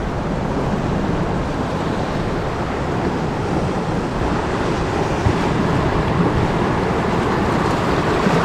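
Steady wash of sea surf mixed with wind noise on the microphone.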